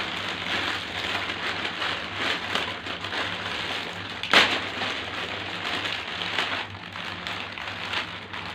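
Plastic snack-packet strips crinkling and rustling as they are handled and pulled out, with one sharp crackle about four seconds in.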